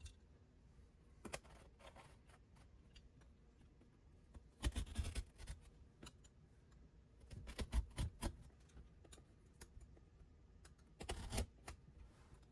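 Hand tools working on carpet: scattered light clicks and three short bursts of cutting or scraping, about five, eight and eleven seconds in.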